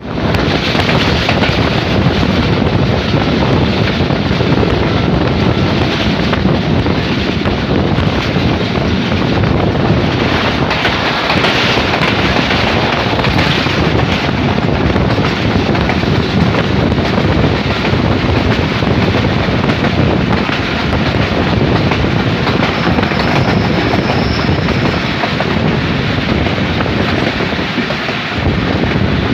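Passenger train running through a junction, its steel wheels clattering on the rails in a steady, loud rumble, with wind buffeting the microphone.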